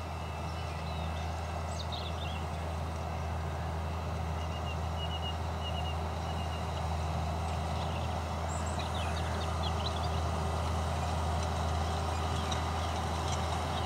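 Fendt Vario 820 tractor's six-cylinder diesel engine running steadily while pulling a maize drill laying plastic film, growing gradually louder as the tractor approaches. A few short bird chirps come through over it.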